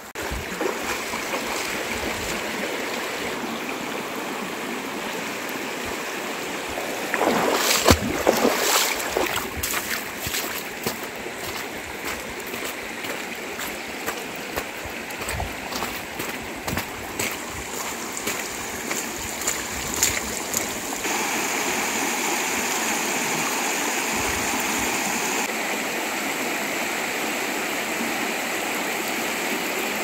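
Shallow rocky river rushing over stones and small rapids: a steady rush of flowing water. A few brief knocks come about eight seconds in, and the rush gets a little louder about twenty seconds in.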